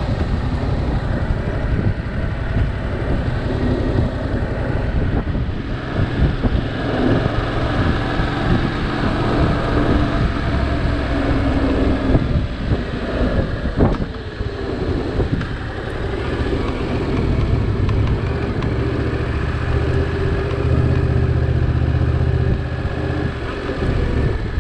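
Motorcycle engine running under way, its note rising and falling.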